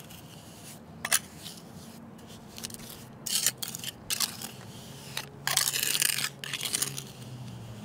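Pointed masonry trowel scraping and smoothing wet vinyl cement patch level with the surrounding concrete sidewalk, in short irregular scrapes with the longest run about five and a half seconds in.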